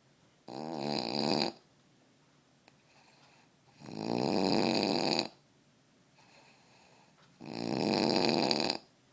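A man snoring: three loud snores about three and a half seconds apart, each lasting a second or more, with faint breaths between them.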